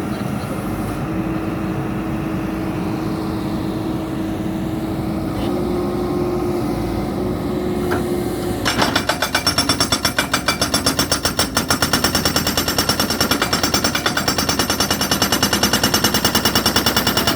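Tata Hitachi Zaxis 140 excavator's engine running steadily, then about nine seconds in, the Unicorn UN100B hydraulic rock breaker starts hammering: rapid, even blows at about five a second.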